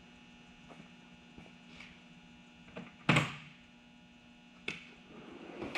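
Sharp clanks of hand tools and engine parts being handled during engine teardown. There are two distinct knocks, a loud one about three seconds in and another just under five seconds in, over a steady electrical mains hum.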